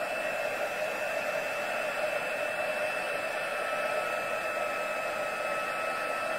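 Embossing heat tool running steadily: a whirring hot-air blower with a thin, steady whine over it, melting clear embossing powder on a stamped card.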